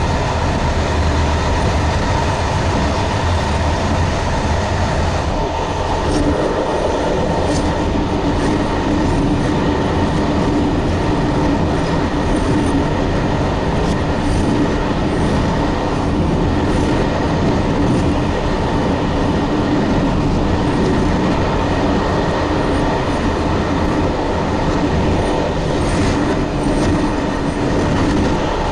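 Running noise of a passenger train at speed, heard from inside the locomotive cab: a steady rumble of wheels on rail with light clicking. In the middle it crosses a steel truss bridge, where a steadier hum comes through.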